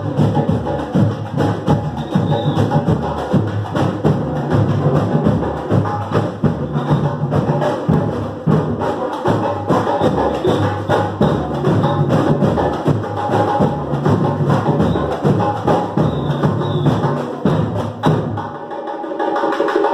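Live samba batucada drumming: surdo bass drums and other hand-played percussion keep up a steady, dense samba rhythm. The bass drums stop about a second and a half before the end.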